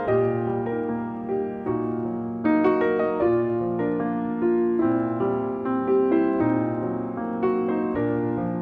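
Background piano music, a melody of held notes changing every half second or so.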